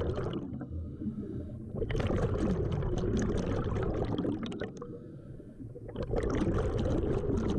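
Scuba diver's exhaled bubbles rushing out of the regulator underwater, a bubbling crackle that comes in bursts of a couple of seconds with quieter pauses between breaths.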